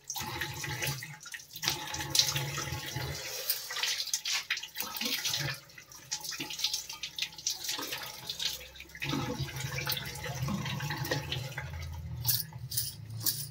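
Water running from a tap and splashing as a person washes their face with cupped hands over a basin.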